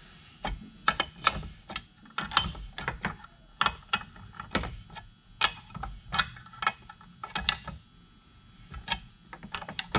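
Wrench turning the nut of a crankshaft alignment tool, pulling a Husqvarna 372 chainsaw crankshaft into its main bearing: a string of irregular metal clicks and clinks, about one or two a second.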